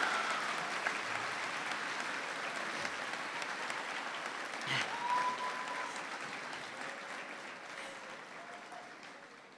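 An auditorium audience applauding, the clapping slowly dying away, with a few faint shouts from the crowd.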